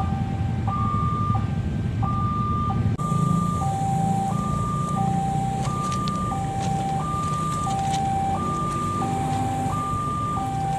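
Railway level-crossing warning siren sounding an electronic two-tone hi-lo alarm. A high and a low tone take turns, each held for about two-thirds of a second, over a steady low rumble.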